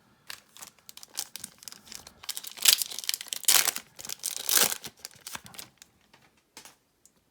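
A Yu-Gi-Oh booster pack's foil wrapper being torn open and crinkled: a run of crackling rips, loudest in the middle, dying away near the end.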